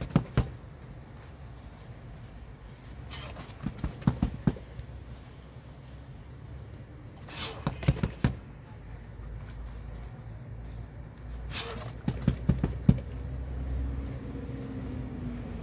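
Bare fists striking a hanging heavy punching bag in quick combinations of several blows, four bursts a few seconds apart, over a steady low rumble.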